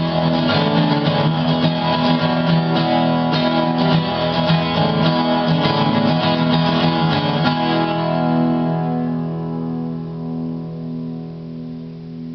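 Martin 12-string acoustic guitar with a double ToneBar fitted in place of bridge pins, strummed in chords. About seven and a half seconds in the strumming stops on a last chord that rings on and slowly fades, its low notes pulsing.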